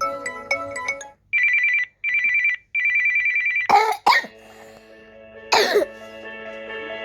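Samsung Galaxy S22+ ringtones playing one after another. A plucked melodic ringtone ends about a second in. Next comes a high electronic trill like a telephone ring, in three short bursts, and then another ringtone starts with swishing sweeps over a held chord.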